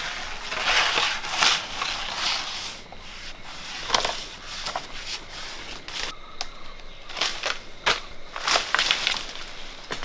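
Leaves and twigs rustling and crackling as a long pole is jabbed up into a mango tree's branches to knock the fruit down. The rustling comes in thick bursts for the first few seconds, then gives way to separate sharp snaps and knocks.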